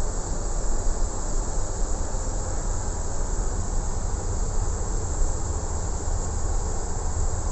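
Steady hiss of air conditioning and equipment cooling fans in a parked Boeing 777-200's flight deck, over a constant low hum.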